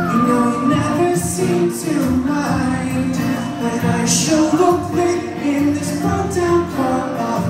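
Two steel-string acoustic guitars playing a song live through the PA, with a male voice singing over them.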